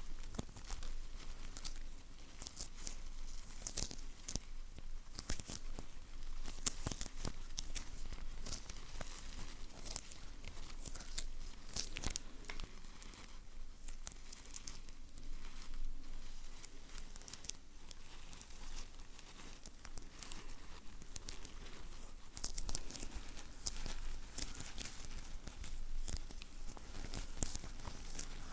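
Close-miked ASMR sticky sounds: something sticky being pulled and peeled apart over and over, giving dense crackling and tearing noises mixed with crinkling.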